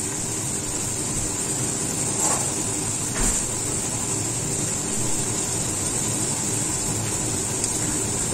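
Steady whirr of a kitchen extractor hood fan over the hiss of diced onion frying in oil for a sofrito, with two soft knocks a little over two and three seconds in.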